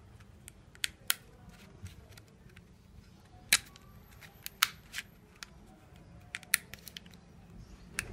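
Irregular sharp plastic clicks and taps as a SIM card is pushed into the slot of an opened Huawei E5573 pocket Wi-Fi modem, the loudest about three and a half seconds in.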